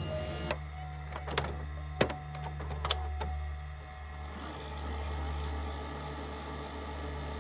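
VCR tape-rewind sound effect: a steady mechanical whirring of the deck's motor, with a few sharp clicks in the first three seconds.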